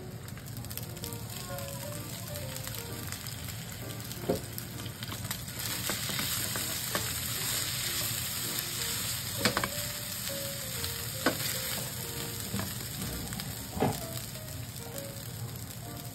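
Rice and corn kernels sizzling in oil in a nonstick frying pan, stirred with a spatula that knocks against the pan about five times. The sizzle grows louder around the middle.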